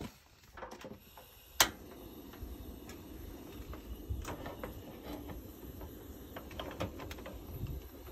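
A single sharp click about one and a half seconds in, the ignition of a portable gas cassette stove, followed by the burner's steady low rush of flame, while an aluminium hot sandwich maker clinks lightly as it is loaded and its lid is closed.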